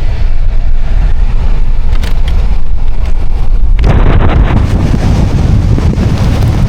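A truck driving through deep snow: a loud, steady low rumble of engine and tyres. About four seconds in it switches abruptly to a louder, harsher rushing noise, with wind buffeting the microphone.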